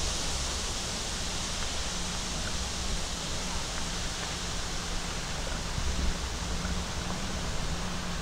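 Steady wind rushing through the forest leaves, with the faint low hum of an approaching fire engine's diesel engine underneath.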